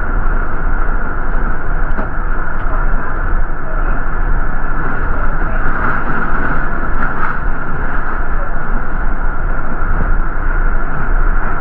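City transit bus running, heard from inside the cabin: a steady rumble of drivetrain and road noise, with a few light clicks and rattles.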